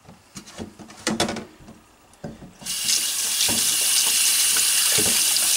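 A few knocks and handling sounds of a plate and hands in a stainless steel sink. About two and a half seconds in, the kitchen tap is turned on and water runs steadily, splashing into the sink.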